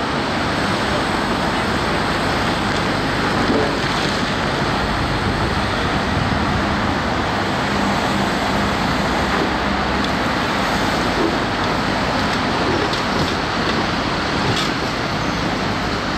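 Heavy diesel machinery, an excavator and truck, running steadily: a loud, even, noisy rumble with a faint steady hum underneath.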